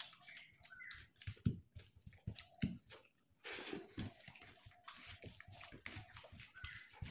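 Close-up eating sounds: irregular wet mouth clicks and chewing, with fingers mixing rice on a banana leaf.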